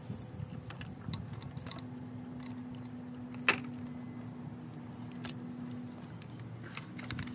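Plastic wiring-harness clips clicking and rattling as a flathead screwdriver pries them loose, with a sharp snap about three and a half seconds in and another near five seconds. A faint steady hum runs underneath.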